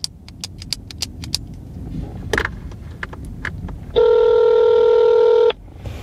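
Telephone ringback tone heard over the phone's speaker: one steady ring of about a second and a half, starting about four seconds in, after a stretch of light clicks and taps.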